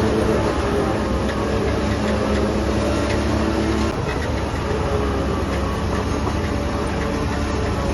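Heavy diesel construction machinery running steadily under load, a deep continuous engine hum with faint clanking.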